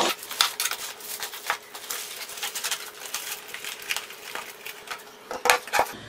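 Handling of the multi-tool's metal accessory blades and their packaging on a tabletop: a knock at the start, then light clinking of metal pieces and plastic bag rustling, with a few louder knocks near the end as something hard is set down on the table.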